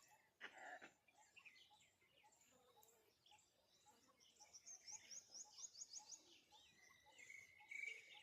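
Faint birdsong: scattered high chirps, a quick run of high rising notes about five seconds in, and a short held whistle near the end.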